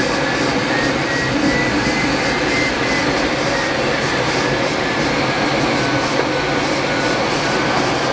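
Steady rush of air around a glider's canopy in flight, heard from inside the cockpit. A faint thin high tone runs through it, drifting slightly up in pitch and then back down.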